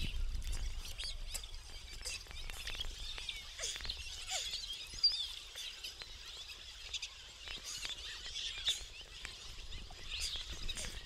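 Lake water lapping and splashing around an action camera held at the surface by a swimmer, full of small clicks and bubbly chirps.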